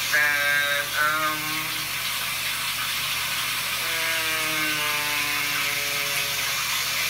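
A man making drawn-out wordless 'hmm' hums while trying to recall what to say. There are short ones near the start and a longer one from about four seconds in, sliding slightly down in pitch, over a steady hiss.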